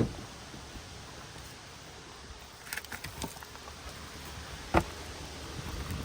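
A few scattered light knocks and clicks, with a sharper knock about five seconds in, over a low steady rumble.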